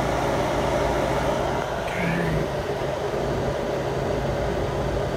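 Steady low machine hum, with a brief faint chirp about two seconds in.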